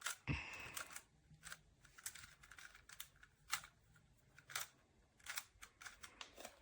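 GAN 356 i-Carry magnetic speed cube being turned face by face to scramble it: a string of faint, irregular plastic clicks as the layers turn and snap into line.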